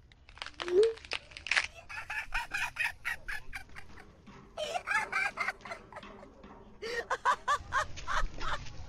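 Three runs of quick, short, bird-like calls, about four a second: one about two seconds in, one around five seconds, and one near the end. A few sharp clicks and a short rising squeak come in the first second and a half.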